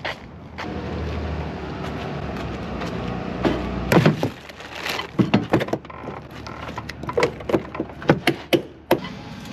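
Knocks and thuds from the semi truck's cab door being opened and bags and a cup being set into the cab, a dozen or so sharp knocks over the second half. A low steady rumble runs under the first few seconds and stops about four seconds in.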